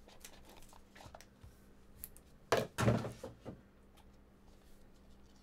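A small trading-card box being slid open, its inner tray pushed out of the sleeve. There are a few soft scrapes and clicks, then two loud thunks close together about two and a half seconds in, followed by a couple of lighter knocks as the box is handled against the table.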